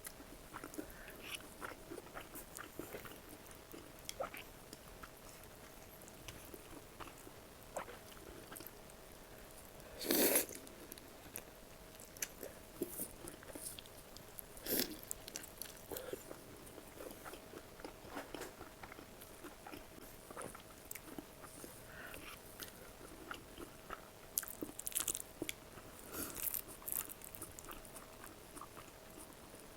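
Close-miked eating: crunchy bites and chewing, with a loud crunch about ten seconds in, another near fifteen seconds, and a run of bites near the end.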